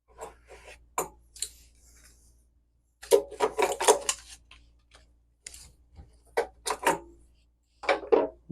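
Metal tools and fittings clanking, knocking and scraping in irregular clusters as the water heater's pressure relief valve is worked loose to be unscrewed.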